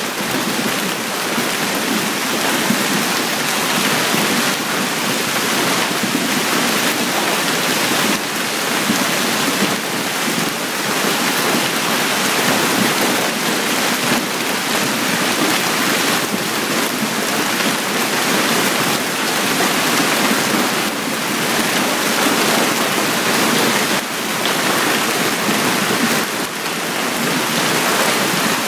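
Heavy hail pelting paved ground and parked cars in a dense, steady patter of countless small impacts.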